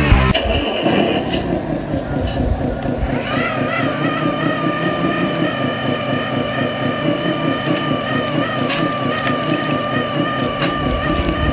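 Remote-control construction vehicle running: a steady, evenly pulsing engine-like chug, joined about three seconds in by a high electric motor and gear whine.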